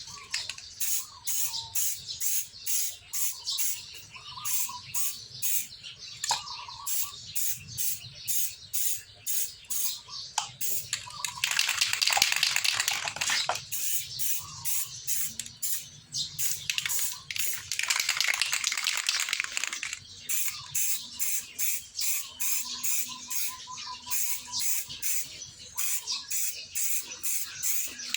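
Aerosol spray-paint can hissing as black paint is sprayed onto a motorcycle engine side cover, with two longer bursts about halfway through. A fast, regular ticking runs underneath throughout.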